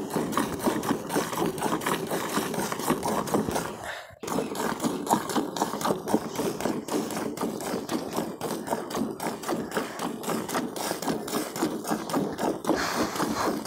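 Hand milking of a cow: rhythmic squirts of milk from alternating teats hissing into a metal pail that already holds frothy milk, with a brief break about four seconds in.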